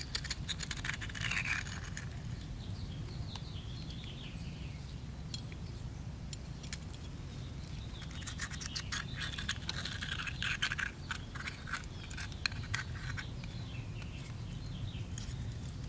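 Metal spoon scraping and clicking irregularly against the inside of an opened sea urchin's shell as the innards are scooped out. Birds chirp faintly in the background.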